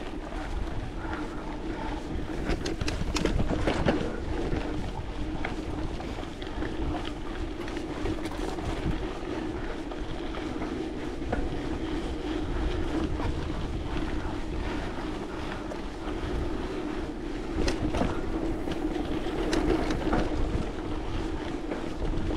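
Wind buffeting the microphone over a steady low hum, with a few faint clicks.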